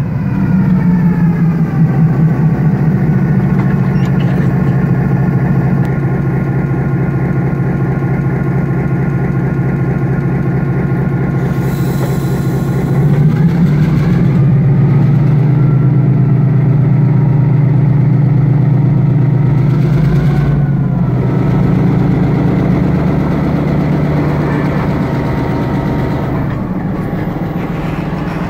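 EMD SW9 switcher locomotive's 12-cylinder EMD 567B diesel running loudly as it moves past. The engine pitch falls just after the start, rises about thirteen seconds in as the throttle is opened, and drops back near twenty-one seconds, with short hisses around those changes.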